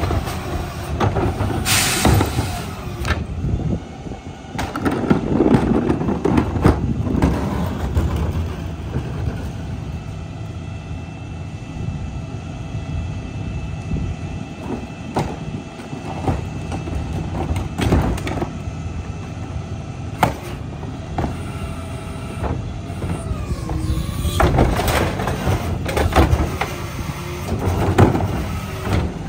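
McNeilus rear-loader garbage truck's CNG engine running under hydraulic load while the packer blade cycles through the hopper, compacting wet trash. Repeated metal clanks and knocks from the packer and cart tipper, loudest near the start and again near the end.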